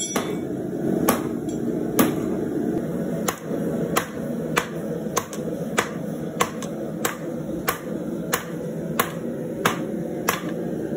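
Hand hammer striking a red-hot steel knife blank on an anvil, hand-forging the blade. The blows come at a steady pace of about one every two-thirds of a second, over a steady low rushing background.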